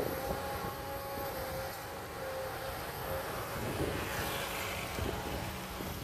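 Kobelco SK200 crawler excavator's diesel engine running under load as the machine swings and works, with a thin steady whine over the first three seconds.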